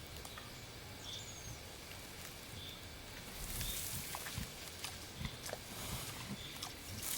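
Wild boar moving through dry forest litter: rustling and crackling from about halfway in, with short low grunts or thuds. A short high chirp repeats about every second and a half.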